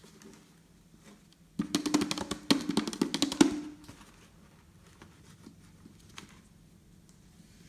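Glossy slime being squeezed and pressed by hand, giving a burst of rapid wet clicks and pops for about two seconds, starting a second and a half in.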